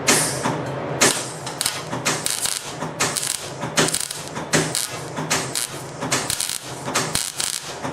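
Electric arc welder crackling in a run of short, irregular bursts as a weld is laid between small steel tubing and heavy pipe, with a steady electrical hum underneath.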